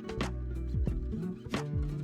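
Background music: sustained chords with a sharp drum hit about every second and a third, and low bass notes that slide downward.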